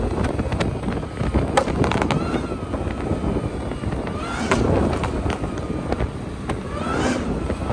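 Vehicle noise: cars running, with wind on the microphone and scattered sharp pops. Two short wavering tones rise and fall, about four and a half and seven seconds in.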